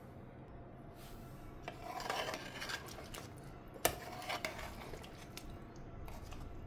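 Metal utensil scraping and stirring through chicken curry in an aluminium pressure-cooker pot, with a sharp clink against the pot about four seconds in.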